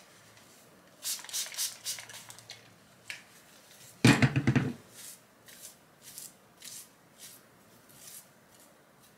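A handheld trigger spray bottle squirts about four times in quick succession, misting a curly wig to hydrate it. About four seconds in there is a louder thump, followed by soft, evenly spaced rustles as hands scrunch and fluff the curls.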